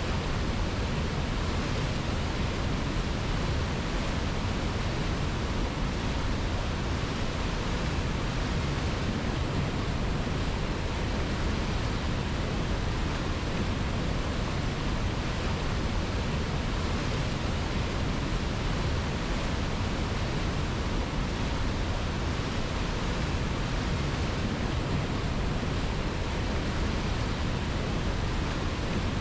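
River water rushing, a steady, even noise with no distinct splashes or changes.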